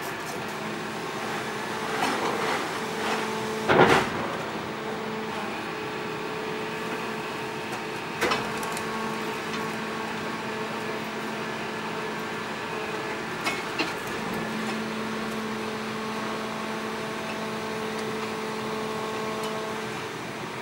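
Crane-equipped garbage truck running, its engine and crane hydraulics giving a steady hum while the lifting bag of a deep-collection waste container is hoisted out. A loud clank about four seconds in, and lighter knocks later on.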